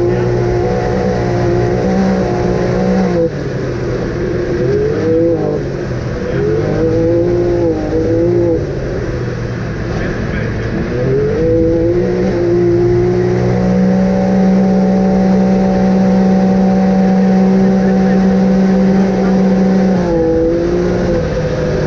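Off-road vehicle engine revving up and down several times, then held at a steady high speed for about seven seconds from around halfway through before dropping back.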